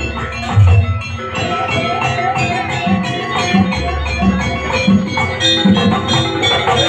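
Live jaranan gamelan music: drum strokes repeating under ringing metal gong and metallophone tones, with a wavering melody line above.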